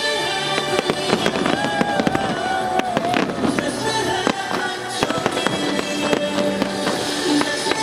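Aerial fireworks display: many shells bursting and crackling in quick succession, over music playing throughout.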